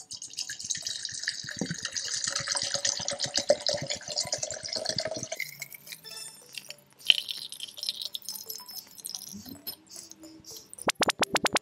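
Old Suntory Royal whisky glugging out of an upturned bottle through a metal tea strainer into a glass carafe, with the strainer catching bits of crumbled cork. A rapid gurgle lasts about five seconds, then the flow thins to trickles and drips. Near the end come about five quick taps.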